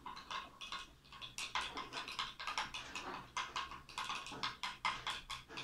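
Metal teaspoon clinking against a small glass in quick, even strokes, about four a second, stirring cold milk coffee until the coffee on top dissolves.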